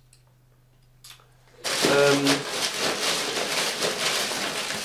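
Near silence for about the first second and a half, then loud, crackly rustling of paper packing material being rummaged through, with a brief voice as it starts.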